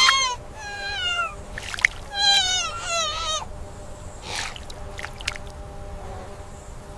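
An animal crying out: a run of about five high, wavering calls over the first half, then only quieter background.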